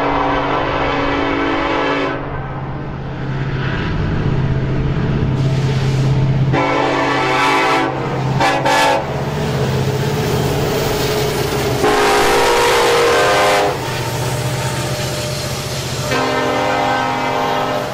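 BNSF EMD SD70MAC diesel locomotives leading a loaded coal train, sounding their air horn in a series of long blasts over the steady rumble of the diesel engines.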